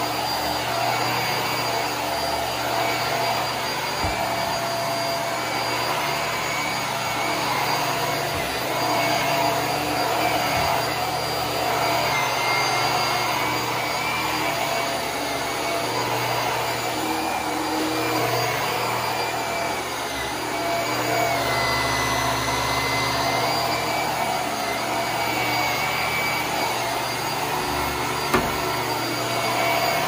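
HART Pet Glide vacuum cleaner running steadily over carpet: a constant motor rush with a whine that wavers slightly in pitch. A sharp click sounds near the end.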